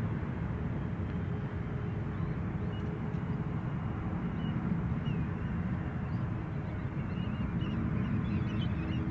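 Steady rumble of a jet airliner landing and rolling out on the runway, with a few faint bird chirps in the middle.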